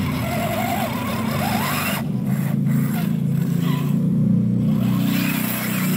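Electric motor and geared drivetrain of an RC scale crawler running steadily under load as it crawls up a dirt slope.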